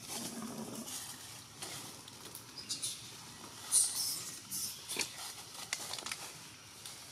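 Dry leaf litter rustling and crackling in scattered, irregular bursts, with a sharper crackle a little under four seconds in and a click about five seconds in.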